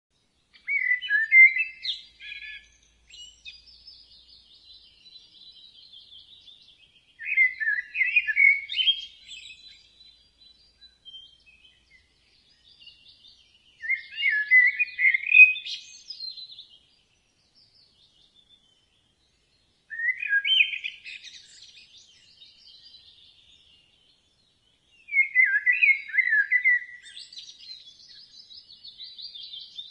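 Birds singing: a loud song phrase of about two seconds comes five times, roughly every six seconds, with fainter, higher chirping in between.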